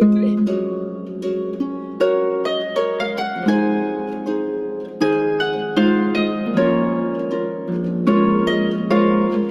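Harp music: plucked strings ringing out in chords and runs, each note fading after it is struck, with fresh strong chords about two and five seconds in.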